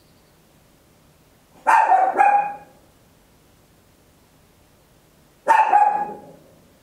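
Papillon barking: a quick double bark about two seconds in, then a single bark near the end.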